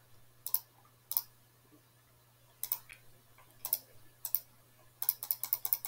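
Computer mouse clicking: a few single clicks about a second apart, then a quick run of about ten clicks near the end, over a faint low hum.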